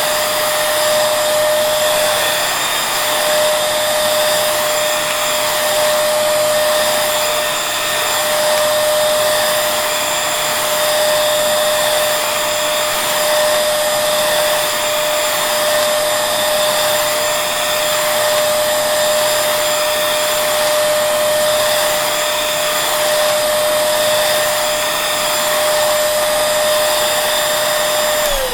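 Vacuum cleaner running steadily: a high motor whine over the rush of air, its level rising and falling slightly every couple of seconds. Right at the end the motor whine starts to drop in pitch as it is switched off and winds down.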